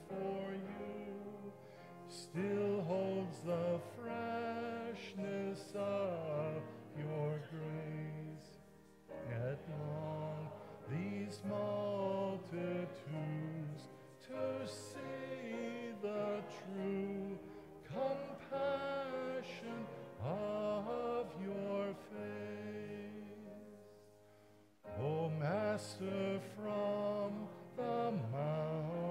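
Congregation of men and women singing a hymn together with instrumental accompaniment. The singing goes phrase by phrase, with a brief pause about 24 seconds in before the next verse begins.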